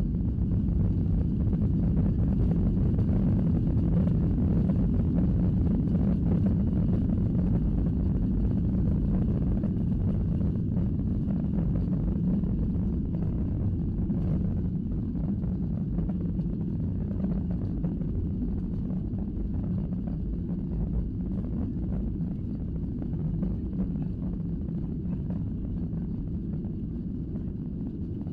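Cabin noise inside a Boeing 737 airliner rolling on the ground: a steady low rumble of jet engines and wheels on the tarmac, rising about a second in and then slowly easing.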